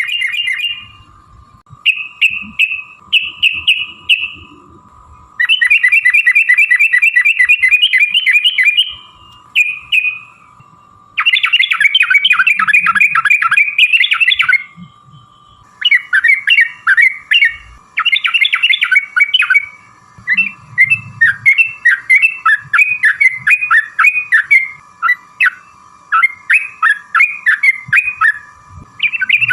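Yellow-vented bulbul (trucukan) singing: long, fast rolling runs of repeated notes, then choppier bursts of chattering phrases, with short pauses between them. A faint steady tone sits underneath.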